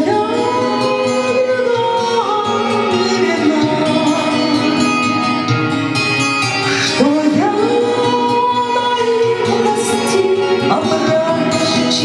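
A woman singing a Russian romance into a microphone over a recorded backing track, holding long notes with new phrases sliding in at the start and again about seven seconds in.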